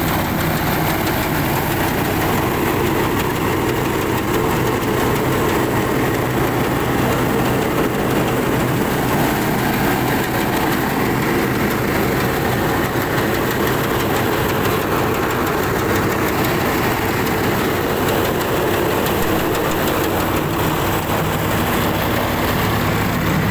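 Sonalika 50 DI three-cylinder diesel tractor engine running steadily under load, together with the straw reaper it drives working through wheat stubble, a dense, unbroken mechanical din.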